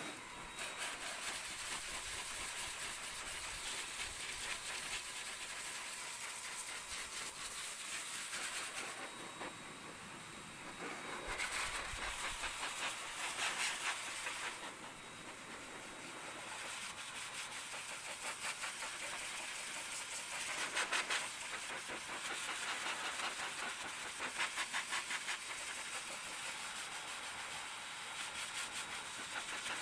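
Hose-type pet grooming blower (forced-air dog dryer) running on its lowest setting, a steady rush of air that dips and swells a few times as the nozzle is moved over the wet dog's coat.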